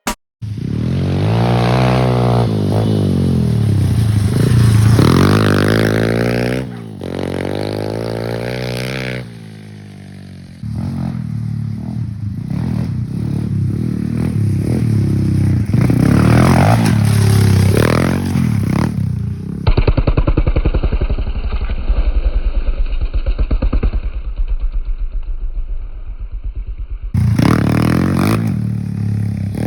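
A 125cc Fury pit bike's small single-cylinder engine revving up and down again and again. Partway through there is a longer spell of slower, evenly pulsing running with a duller sound, then more revving near the end.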